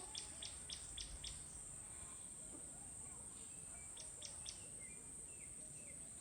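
Faint outdoor ambience: a steady high-pitched insect drone, like crickets, with short bird chirps.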